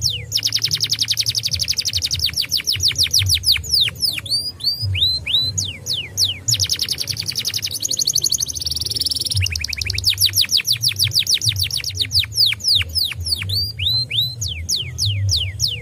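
Domestic canary singing a long run of fast trills: rows of rapid down-sweeping notes, with a rolling warble about two-thirds of the way through. A low steady hum runs beneath.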